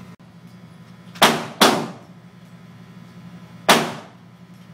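Three gunshots ringing out in an indoor shooting range: two close together about a second in, then a single one near the end, over a steady low hum.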